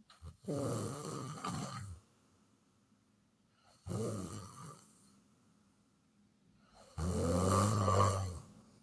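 A person snoring, three snores about three seconds apart. The third is the loudest and carries a low steady pitch.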